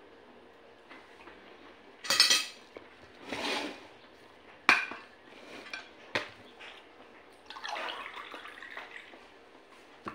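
Metal cutlery clinking and scraping against a dish a few times, with two sharp clicks in the middle, then a glass of water picked up and drunk from.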